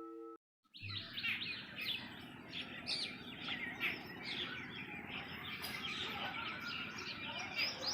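The last of a ringing bell tone cuts off abruptly, and after a short silence a chorus of small birds chirps and twitters steadily.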